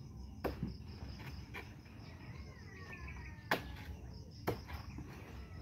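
Machete chopping into the fleshy stalk of a banana plant: a few sharp, irregularly spaced chops, over a steady chirring of crickets.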